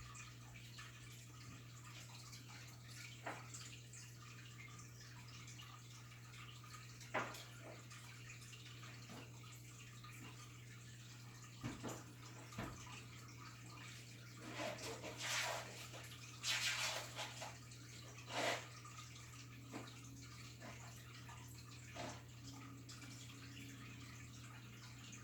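Ranchu goldfish feeding at the water surface: sharp, wet pops and slurps now and then, busiest in a cluster about two-thirds of the way in. A steady low hum and a faint watery trickle run underneath.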